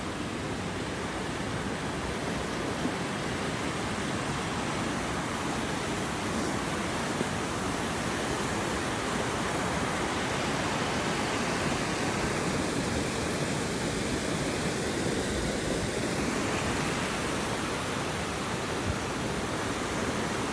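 Steady, even rush of water.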